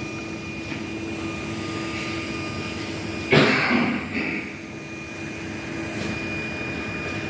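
Label printer running its calibration: a steady motor whir with a few held tones, and a short loud rush of noise about three seconds in as labels are fed through.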